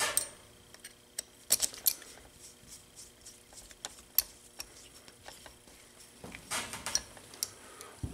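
Light metallic clicks, taps and scrapes of a hex driver working against the aluminium main rotor head of an Align T-REX 550X RC helicopter as the head's mounting bolt is fitted. The clicks are scattered singly, with a denser run of small clicks and scrapes a little before the end.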